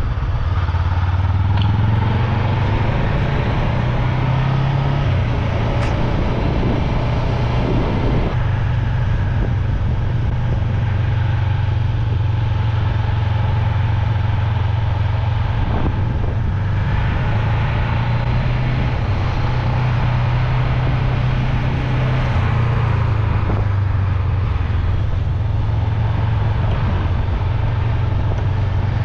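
Voge 500AC's parallel-twin engine running steadily under way, with a constant low drone and wind and road noise.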